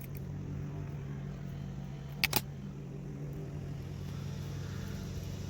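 Steady low mechanical hum, with a sharp double click about two seconds in as a butt splice is crimped onto a wire.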